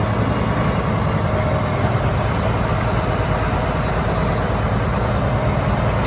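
Heavy diesel engine running steadily at a constant pitch.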